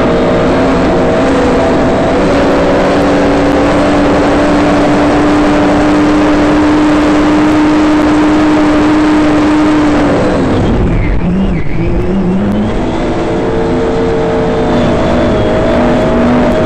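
6-litre fuel-injected circuit race boat engine running flat out at steady high revs, over a rush of wind and water noise. About two-thirds of the way through, the revs drop sharply and the note dips low, then it picks up and climbs again.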